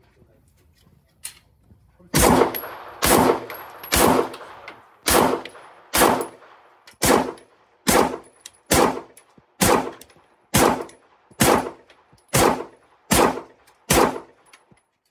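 A string of about fourteen single gunshots, about one a second, starting about two seconds in, each with an echoing tail. A firearm is being fired shot by shot at a paper target.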